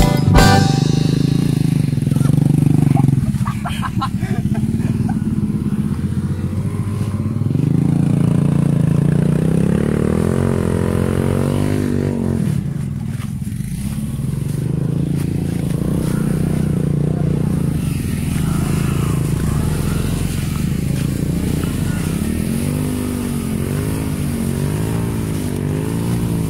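Small motorcycle engines running on a rough dirt trail, their pitch rising and falling over and over as the riders open and close the throttle.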